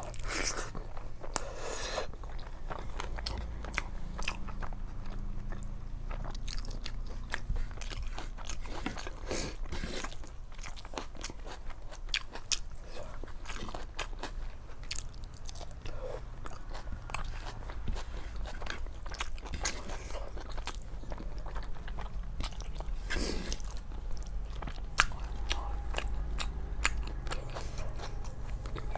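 Close-up chewing and mouth sounds of someone eating rice and chicken curry: many small wet clicks and smacks at an uneven pace, over a steady low hum.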